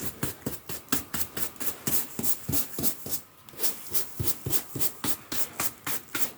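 A hand brush sweeping stray sand back onto a carpet, with short scratchy strokes about four or five a second and a brief pause around the middle.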